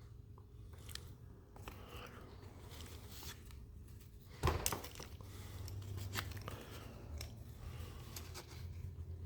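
Faint scraping and dabbing of a tool packing JB Weld epoxy into a void in a plastic fridge-door frame, with small clicks and one sharper knock about four and a half seconds in, over a low steady hum.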